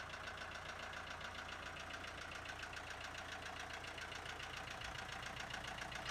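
A machine running steadily with a fast, even rhythm.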